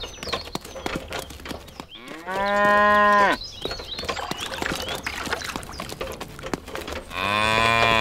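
A cow mooing: one long, steady moo about two seconds in, and a second moo beginning near the end. Scattered faint clicks and crackles fill the gap between them.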